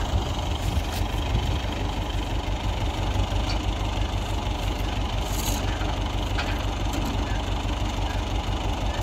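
Massey Ferguson tractor engine running steadily at a low, even idle.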